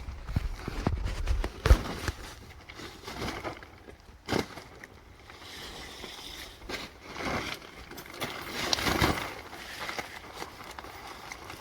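Plastic wrapping being pulled and torn off a crated sawmill, with irregular crackling rustles and a few sharp knocks, the sharpest about two seconds in.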